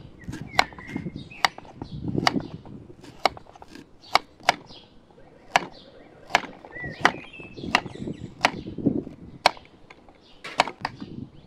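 Kitchen knife slicing raw carrot on a wooden cutting board: a sharp knock each time the blade goes through onto the wood, at an uneven pace of about one or two cuts a second.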